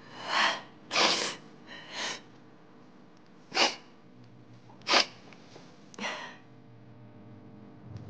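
A woman crying: about six sniffs and shaky in-breaths. The first three come in close succession, then three sharper sniffs follow at gaps of about a second and a half.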